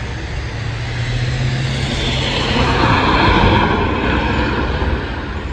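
A motor vehicle passing by on a road: a low steady hum, with road noise that swells to a peak a little past the middle and then fades.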